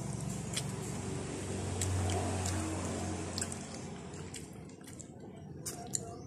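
Fingers picking apart grilled fish and rice make soft, moist squishing with scattered light clicks. A steady low hum sits underneath, strongest about two seconds in.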